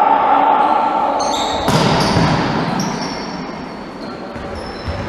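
Indoor volleyball rally echoing in a large sports hall: a sharp ball hit about a second and a half in, and short high squeaks of players' shoes on the court floor. A steady held tone sounds at the start and cuts off at the hit.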